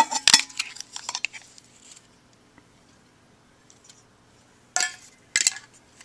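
Metal Zippo lighters clattering and clinking as they are handled, then a quiet pause and two short sharp metallic clacks near the end.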